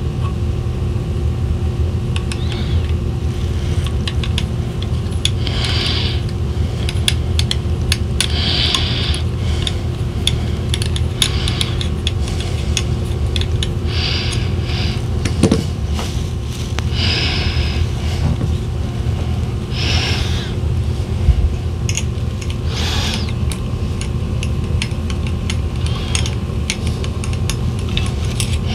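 Small metallic clicks and brief scraping sounds from a 2.5 mm hex driver turning in the FX Impact M3 second-stage regulator's adjustment screw, backing it out, over a steady low hum.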